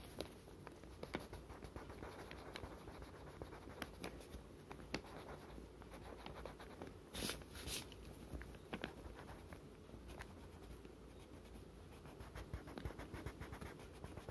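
Faint scratching of a crayon on paper in many short strokes, colouring in a small patch. Two brief louder rubs about seven seconds in.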